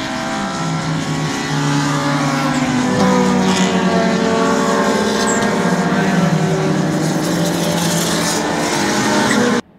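A pack of club racing cars driving past, several engines running together with overlapping notes that rise and fall. The sound cuts off suddenly near the end.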